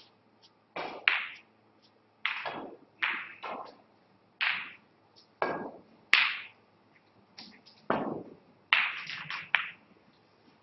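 A series of short knocks and taps on and around a snooker table. About six seconds in, the cue strikes the cue ball with a sharp click, followed by further knocks as the balls meet each other and the cushions.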